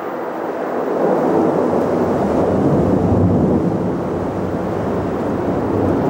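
Airbus A330 twin jet engines at takeoff climb thrust, passing close overhead: a loud, steady rushing noise with a deep rumble underneath, which swells about a second in.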